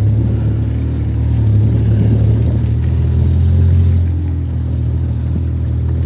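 Engine of an open-top off-road vehicle running steadily as it drives along a dirt track, heard from on board; the engine note swells a little, then eases off about four seconds in.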